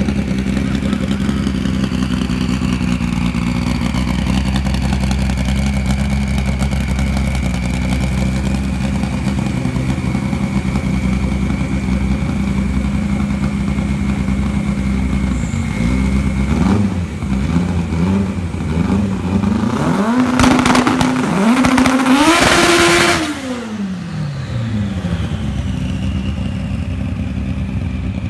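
Drag car's engine idling steadily, then blipped up and down from about 16 seconds in. Around 20 seconds in the revs climb in steps while the tyres spin in a burnout, loud squealing noise over the engine, before the revs fall back to idle about 23 seconds in.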